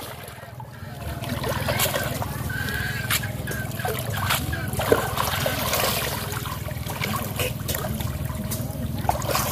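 Pond water splashing and trickling as a cast net with its catch is hauled up and gathered by hand, with scattered sharp slaps and clicks.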